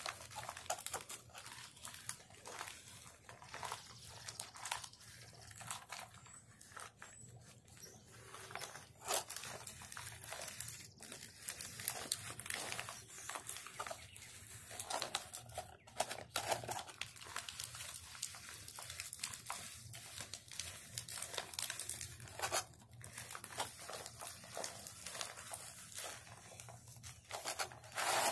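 Stiff, half-tanned deer hide crinkling and crackling irregularly as hands press and knead it, breaking the hide down to soften it into buckskin.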